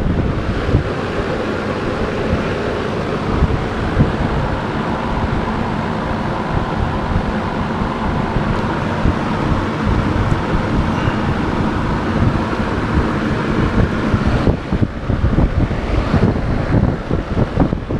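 Steady rumbling noise of wind buffeting the microphone.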